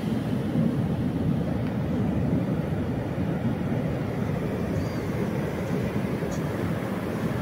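Ocean surf breaking on a sandy beach: a steady low rumble of waves.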